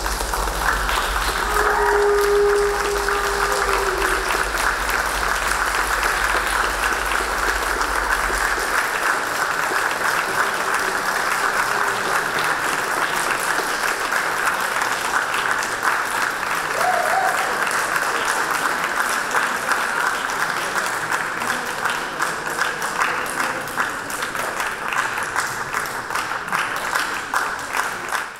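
Audience applauding: a dense, steady wash of clapping that thins slightly near the end.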